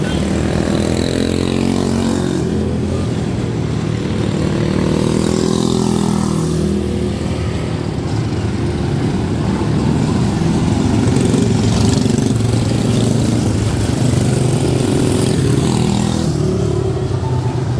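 Several quarter midget race cars' small single-cylinder Briggs & Stratton Animal engines running together on a dirt oval, their pitch rising and falling as the cars circle and pass.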